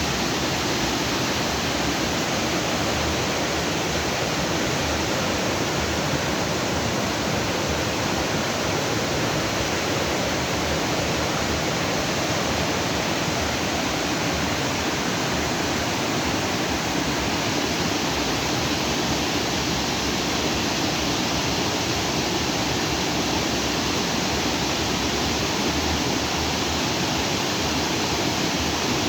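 Water from a lagoon's outflow rushing freely over rocks in a stream, a steady, unbroken rushing.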